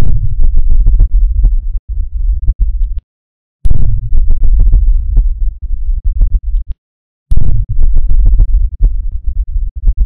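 Deep bass rumble sound effect: a low rumble with a stuttering, crackling texture. It comes in blocks of about three seconds that start abruptly and stop dead, with short gaps of silence about three and about seven seconds in.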